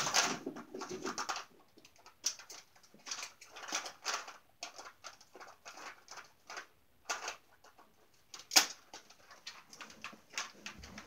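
Off-camera rummaging: irregular clicks, knocks and rustles of objects being handled and moved, with one sharper knock about eight and a half seconds in.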